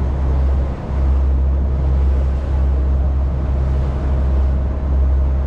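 Tour boat's engine droning steadily at a low pitch under a steady rushing noise, with a brief dip in the drone a little under a second in.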